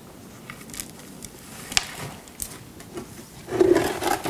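Handling noises of a mica bonsai pot and the tree's root ball on a workbench as the pot is lifted and the tree is set into it to test the size: a few light clicks and knocks, with louder handling noise near the end.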